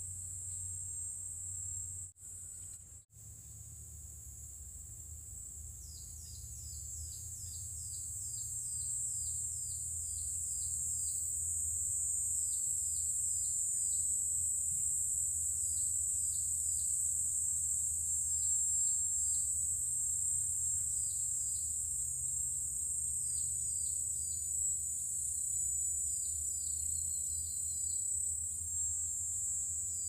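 Forest insects keep up a steady, high-pitched drone, and from about six seconds in a bird gives short, high, falling chirps in quick runs, over a low steady rumble.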